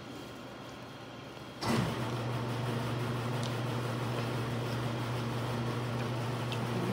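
An electric appliance's motor and fan start suddenly about a second and a half in, then run on with a steady low hum and the rush of air. A few faint clicks sound over it.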